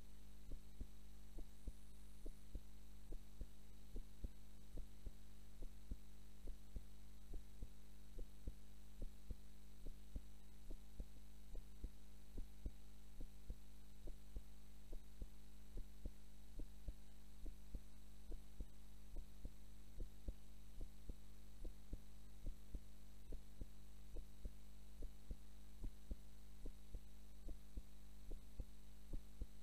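A young woman's heartbeat, recorded while she naps: a steady, even run of soft thumps over a constant low hum.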